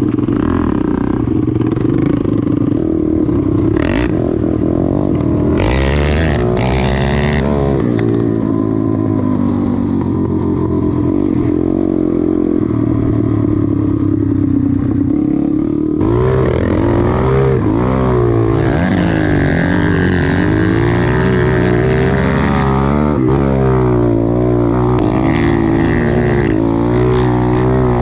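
Dirt bike engine running and revving up and down as the bike is ridden, heard up close from the bike itself. The sound changes abruptly about halfway through.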